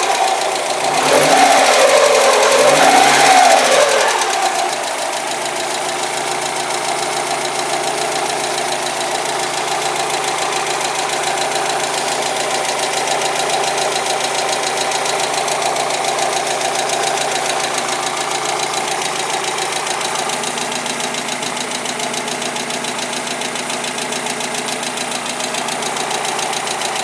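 1992 Mazda Miata's four-cylinder engine revved twice in the first few seconds, then settling to a steady idle with a fast, even ticking/knocking. The owner's father takes the noise for a sign that the engine needs replacing.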